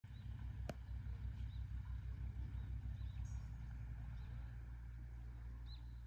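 A low rumble that pulses rapidly and evenly for about the first three seconds, then settles into a steady low hum. Short high bird chirps come every second or so, and there is one sharp click about a second in.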